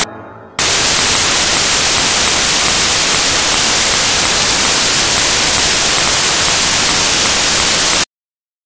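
Loud, steady static hiss like white noise, with no pitch or rhythm, starting abruptly about half a second in and cutting off abruptly into dead silence near the end.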